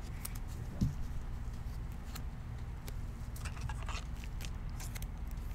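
Faint rustling and clicking of trading cards being handled, over a steady low hum, with a soft thump about a second in.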